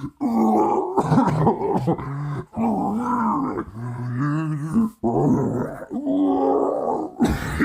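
A man's voice acting out General Grievous's coughing fit: long, growly hacking and wheezing coughs in several drawn-out stretches with short breaks between.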